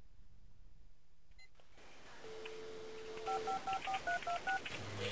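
Telephone dial tone, then a quick run of about seven touch-tone (DTMF) keypad beeps as a number is dialed.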